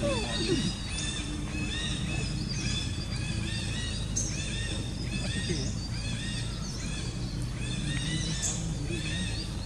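Outdoor ambience: birds calling over and over above a steady low background hum, with a short falling squeal right at the start.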